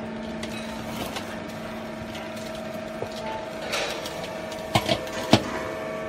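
A vertical hydraulic baler's motor and pump running with a steady hum. A few sharp knocks come about five seconds in.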